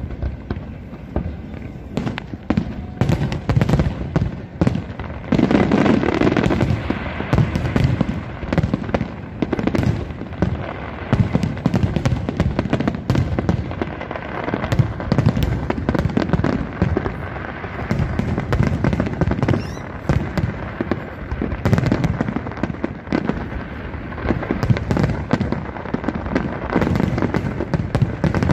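Large aerial fireworks display: many shells bursting in quick succession, a dense, unbroken barrage of booms and crackles overlapping one another.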